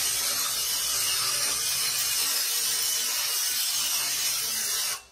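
Electric winch on a stacker lift running steadily as it hoists a 127 kg electric motor on its platform, a loud even mechanical noise with a low hum. It cuts off sharply near the end.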